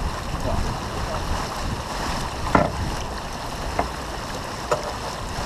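Steady rush of wind and water past a heeled sailboat beating through chop. A few short sharp knocks stand out, the loudest about two and a half seconds in.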